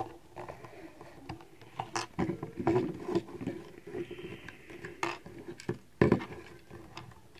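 Plastic Lego bricks of a puzzle box being handled, with irregular clicks, rattles and knocks as pieces are pulled out and moved; one louder knock about six seconds in.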